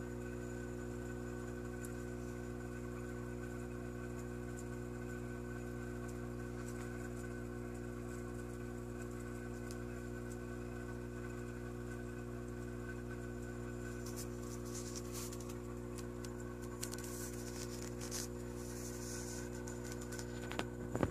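Steady electrical hum made of several fixed tones. Faint scattered clicks come in over the last several seconds, with a couple of small knocks near the end.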